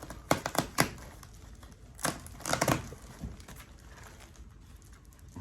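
Packaging wrapped around a boxed plant being handled and pulled open: a cluster of sharp crinkles and rustles in the first second, another around two to three seconds in, then softer rustling.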